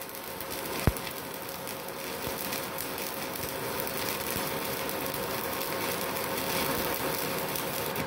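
Stick (MMA) arc welding with a MultiPro MMA 160 G-KRK inverter welder set to 120 amps: the electrode arc crackles and sizzles steadily, with one sharper click about a second in. The crackle cuts off abruptly at the very end as the arc is broken.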